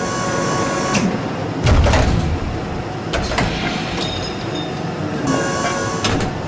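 Battleship gun turret loading machinery running, a steady mechanical clatter and whine with sharp clacks. A heavy thud about two seconds in.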